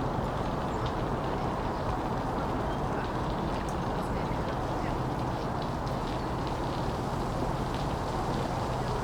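Steady autumn wind mixed with the hum of distant city and bridge traffic, with a low engine hum growing stronger about halfway through.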